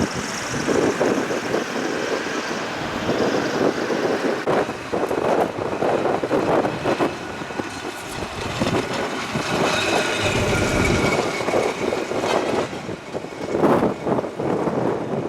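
Tram running past: a steady, rough rumble of wheels and motor, with a faint high whine that falls slightly about ten seconds in.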